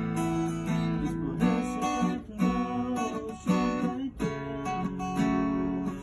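Acoustic guitar being strummed and picked, moving through a chord progression with the chords changing about every half second to a second.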